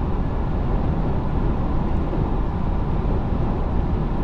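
Steady road noise inside a car's cabin at highway speed: a low, even rumble of tyres and wind.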